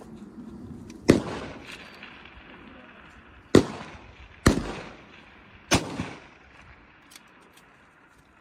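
Four sharp precision rifle shots at uneven spacing, each trailing off in an echo.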